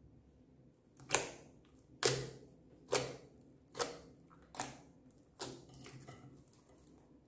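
Fingertips poking into thick, glossy slime in a glass dish: six sharp sticky pops about a second apart, each fading quickly, then fainter crackling as the slime is gathered up near the end.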